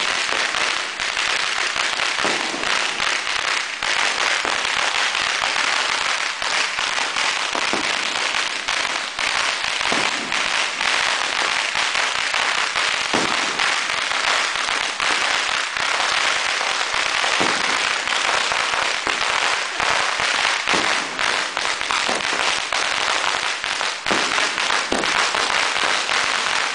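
Firecrackers and fireworks going off in a dense, continuous crackle, with louder single bangs every few seconds. The Chinese New Year barrage is very loud.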